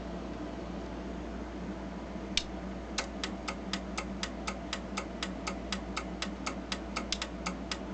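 Edwards 2400 fire alarm panel's relays clicking in march time, a very regular train of about four clicks a second that starts about three seconds in, just after a single sharp click. The clicking is the sign that the panel is in alarm, pulsing its signal circuit. A low steady hum runs underneath.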